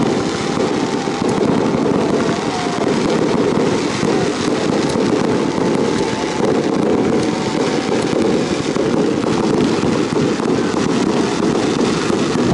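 Consumer fireworks going off close by: a dense, continuous run of crackles and pops over a steady low rushing noise.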